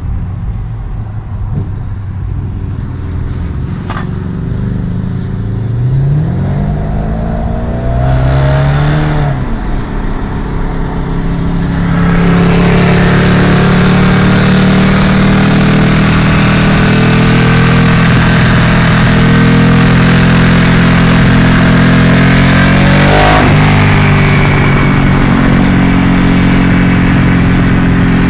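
Ducati Streetfighter 1098's L-twin engine through a Quat-D exhaust, heard from a following car. At first road noise dominates while the engine revs up twice in rising sweeps; from about halfway it is loud and steady right alongside, with one quick rev in the last third.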